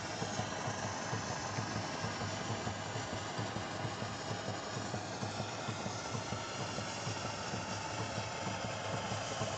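A 1950s–60s Stirling hot-air engine with twin flywheels running steadily, its crank and rods making a fast, even mechanical beat over a constant hiss.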